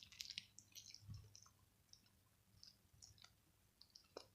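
Faint sticky clicks and small pops of homemade slime being squeezed in the hands, most in the first second, then a few scattered ones.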